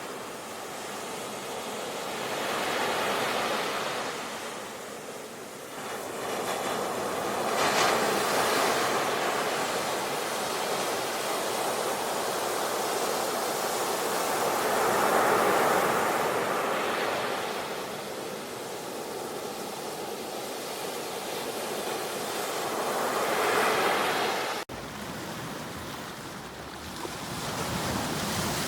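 Ocean surf: waves breaking and washing up the shore, the rush of water swelling and fading about four times. The sound briefly drops out near the end.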